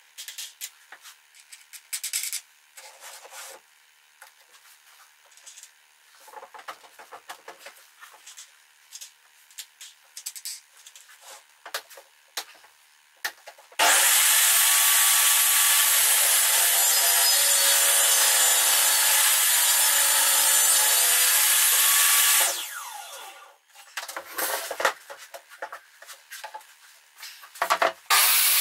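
Small clicks and knocks of toggle clamps and a board being handled on a wooden table saw sled. About halfway through, a portable jobsite table saw starts suddenly and runs loud and steady for about eight seconds, its pitch dipping for a while as the blade rips along the edge of the clamped board. It then winds down, a few more knocks follow, and the saw starts again right at the end.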